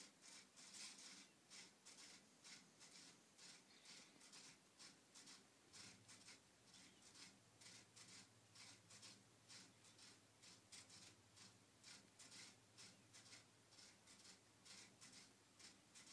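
Floppy disk drives run by an Arduino Mega, ticking in a quiet, steady rhythm of short pulses, about three a second. A low hum joins about six seconds in.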